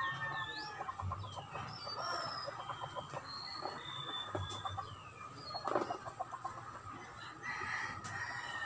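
Chickens clucking and a rooster crowing, with small birds chirping in short, high whistles.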